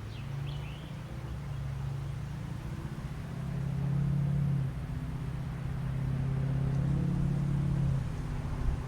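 Steady low engine hum that swells twice, about four seconds in and again near eight seconds.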